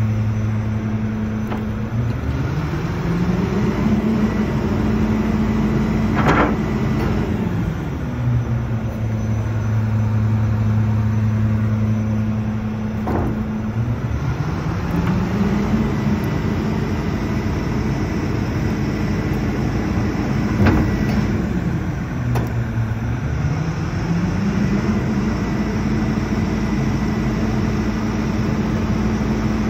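Garbage truck's diesel engine idling, then three times rising to a higher steady speed, holding for several seconds and dropping back, as the engine speeds up to drive the rear bin lifter's hydraulics. A few sharp metallic knocks come from the lifter mechanism during the cycles.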